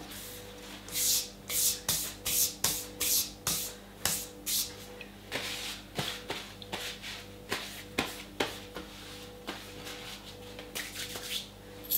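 Hands being wiped dry in a cloth, a run of brisk rubbing strokes, about two a second, most vigorous in the first few seconds and lighter after.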